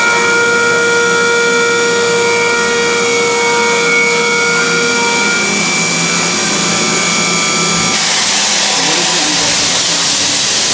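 Fadal CNC vertical machining center milling a part under flood coolant: a steady whine of several high tones from the spindle and cutter. About eight seconds in the tones stop and a loud hiss takes over.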